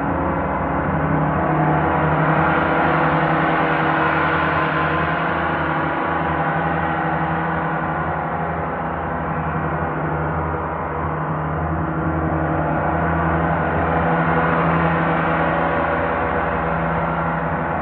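Large gongs played with a mallet: a continuous dense wash of many ringing tones over a deep hum, swelling louder a couple of seconds in and again near the end.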